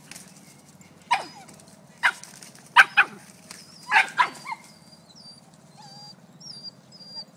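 Dog barking in short, sharp single barks while herding ducks, about six barks over four seconds, some in quick pairs.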